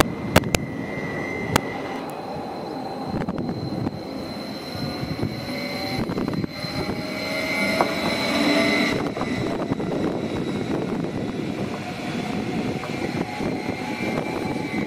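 Electric multiple unit train running past with a steady high whine from its traction equipment over the rumble of wheels on track, with a few sharp clicks in the first two seconds.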